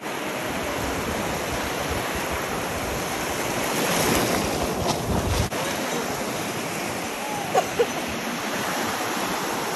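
Sea surf washing steadily on the shore, mixed with wind on the microphone. Two brief sharp sounds stand out about three-quarters of the way through.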